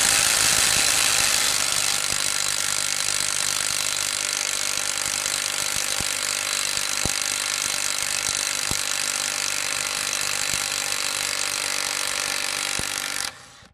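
Dongcheng DCPB02-18 cordless brushless impact wrench in low mode, hammering steadily on a wheel bolt torqued to 200 Nm to break it loose. It runs on for many seconds and stops shortly before the end, too slow on low mode for higher torques.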